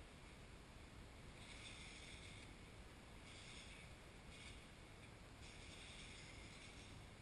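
Near silence: faint outdoor background hiss, with a higher hiss that comes and goes every second or so.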